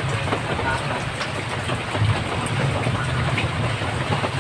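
Heavy rain falling: a steady hiss dotted with many small drop ticks, over a low rumble.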